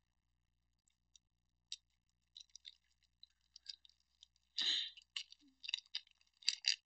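Trading cards being handled and sorted: scattered light clicks and ticks of card stock, growing busier near the end, with a short rushing noise about two thirds of the way through.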